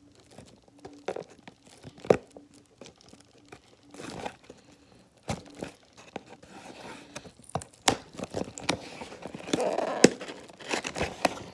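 Slime packaging being torn open and crinkled: scattered sharp clicks and rustles, growing into a denser stretch of crinkling near the end.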